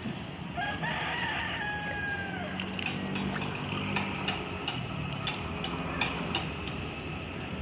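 A rooster crows once, starting about half a second in: one drawn-out call that falls away at its end. Scattered light clicks follow.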